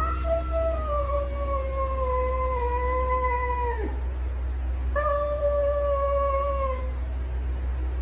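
A domestic cat yowling: two long drawn-out cries. The first lasts about four seconds, sagging slowly in pitch and dropping off at the end; the second, shorter one starts about a second later. Both sound over a steady low hum.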